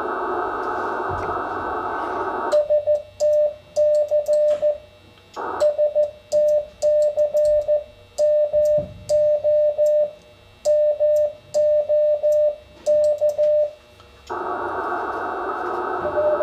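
Morse code sent by hand on a key through an Icom IC-7300: a clean steady sidetone keyed into dots and dashes, with small clicks from the key, from about two and a half seconds in until about fourteen seconds. Before and after the sending, the receiver's band hiss with an incoming Morse signal in it.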